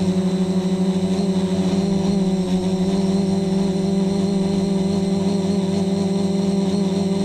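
Electric motors and propellers of an FPV multirotor droning steadily at a constant pitch while it hovers, picked up close by a GoPro mounted directly on the frame.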